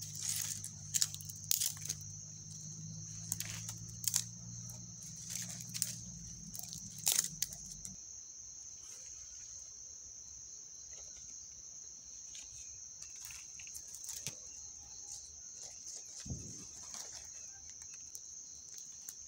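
Night insects chirring steadily in one high continuous band. Over the first seven seconds or so, dry twigs and leaves snap and crunch as they are handled. A low hum underneath stops about eight seconds in.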